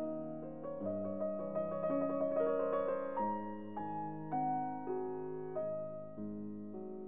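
Background piano music: soft single notes and chords, each struck and left to fade, with a quicker run of notes about a second in.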